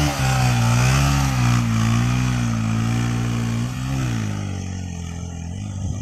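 Yamaha dirt bike's engine pulling away, its pitch rising and falling repeatedly as it is throttled. It fades after about four seconds as the bike rides off.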